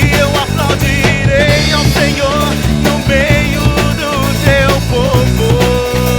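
A rock-style gospel song played loudly on drum kit, bass and guitar, with a wavering, sliding lead melody over a steady beat.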